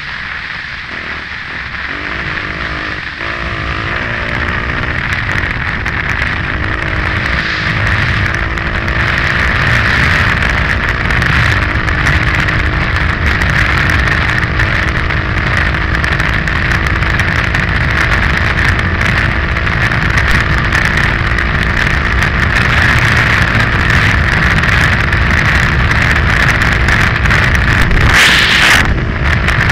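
KTM 530 EXC-R single-cylinder four-stroke enduro engine pulling the bike at speed on a dirt road, mixed with heavy wind rush on the microphone and tyre noise. The engine note climbs over the first few seconds, then holds steady. Near the end there is a short, loud rush of noise.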